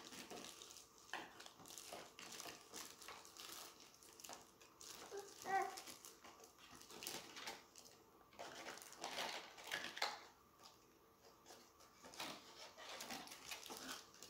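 Clear plastic accessory bags crinkling and small plastic action-figure parts clicking as they are handled. A brief high squeak or whine sounds about five and a half seconds in.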